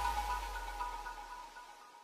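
Background music fading out steadily to silence.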